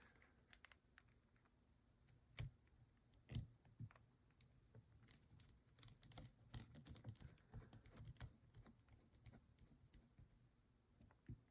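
Faint, scattered small clicks and ticks of metal knife parts and a small driver being handled while a folding knife's pivot screw is started. A few sharper clicks come in the first four seconds, then a run of light ticking about halfway through.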